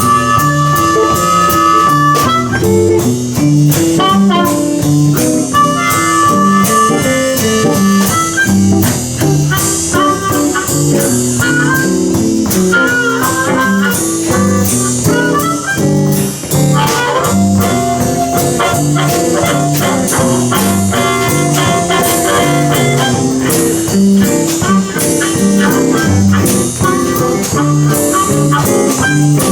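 Live blues boogie instrumental break: a harmonica solos in phrases of long held notes over two electric guitars playing a walking shuffle line and a drum kit keeping a steady beat.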